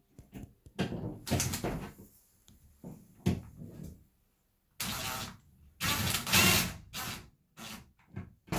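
Irregular knocks, scrapes and short bursts of noise from work on a closet door as a knob handle is being fitted. The longest and loudest bursts come about five to seven seconds in.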